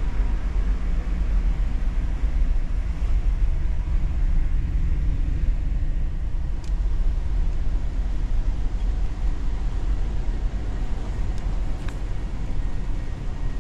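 Steady low rumble of a large car ferry's engines and hull while underway, heard inside a passenger lounge, with a couple of faint clicks about seven and twelve seconds in.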